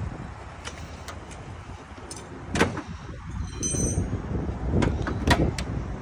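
Several sharp knocks and clicks of handling, the loudest a little after two and a half seconds and again about five seconds in, with a brief thin squeak between them, over a steady low rumble.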